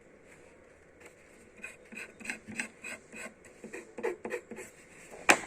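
Sticker sheets or their plastic packaging being handled: a run of short crackling rustles and ticks, then one sharp snap near the end.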